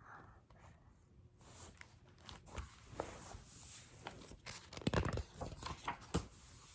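Faint rustling and light knocks of paper book pages being handled and turned, loudest about five seconds in.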